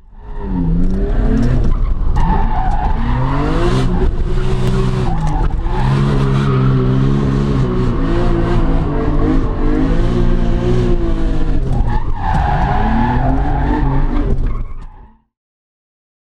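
Nissan R32 Skyline's engine revving hard, its pitch rising and falling over and over while drifting, heard from inside the cabin. The tyres squeal loudly about two seconds in and again about twelve seconds in. The sound stops abruptly about fifteen seconds in.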